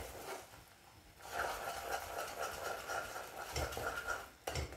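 Wooden spatula stirring and scraping caramel syrup around a pot, a soft, faint scraping that starts after a brief quiet moment, with a couple of low bumps near the end.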